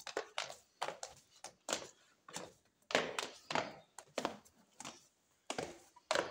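Footsteps going down a stone staircase: a steady run of quick thuds, about three steps a second.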